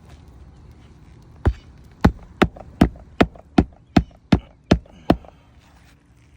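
Hammer driving a roofing nail into an asphalt shingle: a single blow, then nine quick, evenly spaced strikes.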